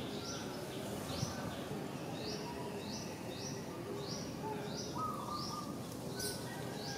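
Outdoor forest ambience: a bird repeats a short, rising high note about one and a half times a second. Fainter calls from other birds sit lower down, over a steady background hiss.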